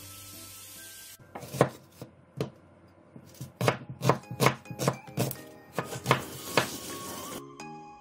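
Cleaver chopping garlic on a wooden cutting board: about ten sharp strokes at an uneven pace, starting about a second and a half in. Light background music plays throughout, and a steady hiss fills the first second.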